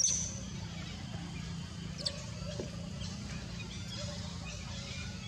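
Two short high-pitched animal squeaks, the louder right at the start and a brief falling one about two seconds in, over a steady low background hum.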